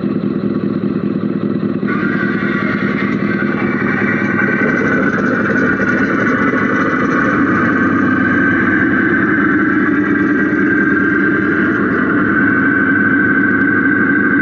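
Radio-controlled Mercedes Actros SLT model truck running, heard from inside its cab: a steady engine-like drone with a higher whine that comes in strongly about two seconds in and holds.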